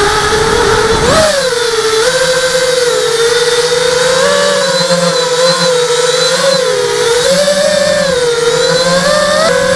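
ZMR hexacopter's six brushless motors and propellers whining in flight. The pitch rises and falls as the throttle changes, with a sharp rise about a second in.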